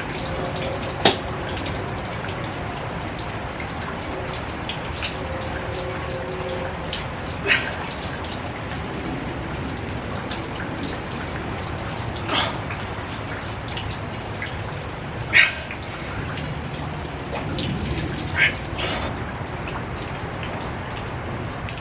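Steady rain falling, with a handful of louder sharp taps at irregular moments, the loudest about two-thirds of the way through.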